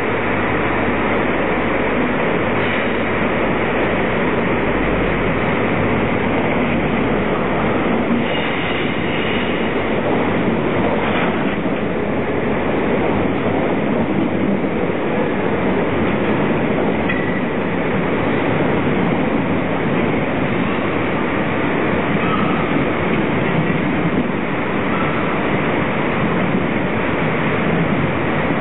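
National Express East Coast express passenger train running into the platform close by, a steady loud noise of its coaches and wheels on the rails.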